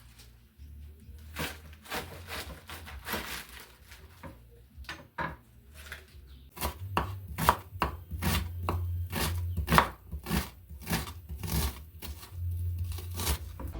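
Knife chopping food on a cutting board: scattered cuts at first, then a steady run of about two to three chops a second from about halfway through.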